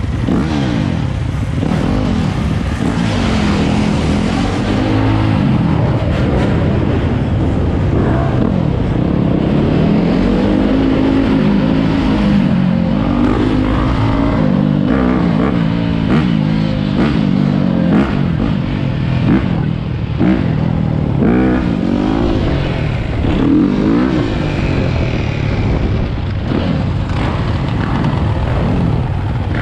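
Dirt bike engine running while riding, its pitch rising and falling over and over as the throttle is opened and closed.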